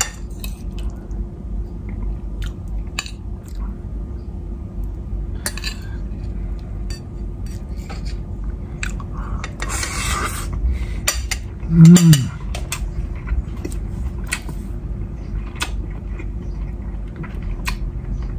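Fork and spoon clinking and scraping against ceramic plates as someone eats, in scattered sharp clicks. About twelve seconds in comes a short, loud, low vocal sound that drops in pitch.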